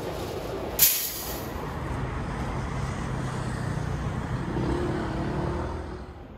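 City street traffic noise with a vehicle engine running, and a short sharp hiss about a second in.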